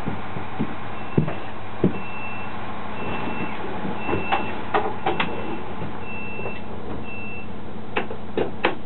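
Alstom LINT 41 diesel railcar cab: an electronic warning tone in the driver's desk beeps about once a second for several seconds over the steady running noise of the railcar. Sharp clicks of desk switches and buttons being pressed come through it, with a quick run of them near the end.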